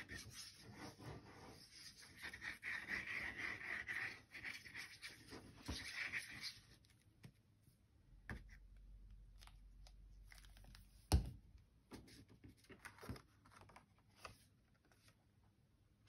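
Fine-tip squeeze bottle of fabric glue squeezed and drawn across cardstock: faint scratchy, hissing sputters for the first six seconds or so. Then one sharp knock about eleven seconds in, and a few light paper sounds.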